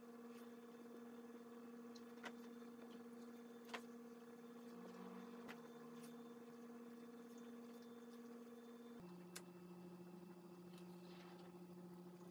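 Near silence: a faint steady electrical hum that drops in pitch abruptly about nine seconds in, with a few soft clicks.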